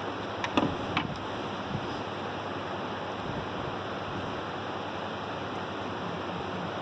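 A steady rushing noise, with a few light clicks or knocks in the first second.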